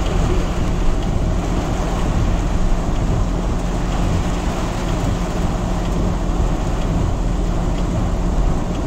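Heavy thunderstorm rain falling on a car's roof and windscreen, heard from inside the car: a dense, steady hiss with a low rumble beneath it.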